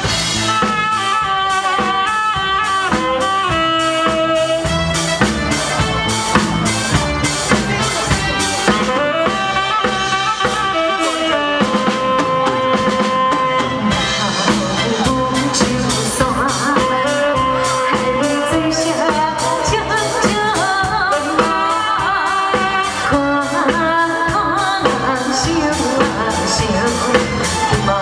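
Amplified stage music played through a PA: a drum kit keeping a steady beat under a held brass or keyboard melody. A woman's singing comes in over it in the second half.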